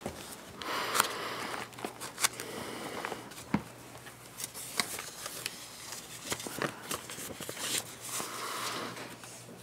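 Paper rustling and Bible pages being handled and turned at a lectern, with scattered small clicks and knocks, and rustling loudest about a second in and again near the end.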